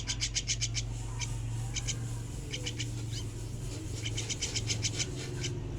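Young jalak (starling) chicks calling in quick runs of short, raspy high chirps, several bursts of about eight to ten chirps a second.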